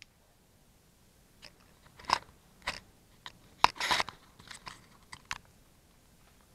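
Irregular clicks, crackles and short scrapes of a handheld camera being handled and moved, about a dozen sharp clicks from about one and a half to five and a half seconds in, with a brief rustling patch around four seconds.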